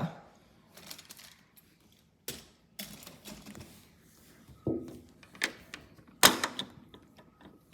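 A few scattered sharp clicks and taps, irregularly spaced, with the loudest near the end.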